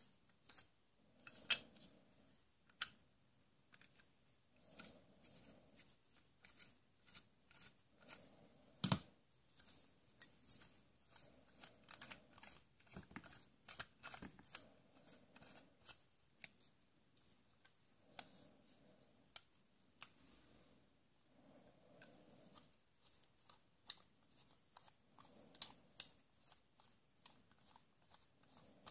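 Quiet, irregular light clicks and snips of small hard objects being handled, a few sharper clicks standing out among them, with soft rustling between.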